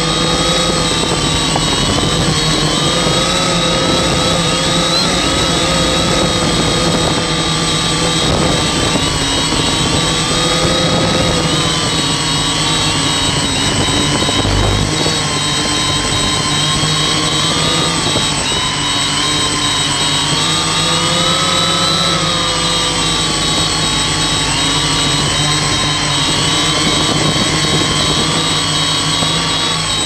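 Octocopter's electric motors and propellers whining steadily as it flies, several tones drifting up and down in pitch with the throttle, with a steady high whine over them. One of the motors is failing, and the uploader puts the noise down to that failing motor.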